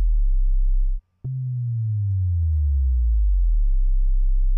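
Deep synth bass from a Buzz machine in FL Studio's Buzz Generator Adapter, gliding down note by note from a low pitch to a very deep one and holding there. It cuts off about a second in, then restarts and glides down again, holding the deepest note for about three seconds, since a held bottom note keeps playing until it releases.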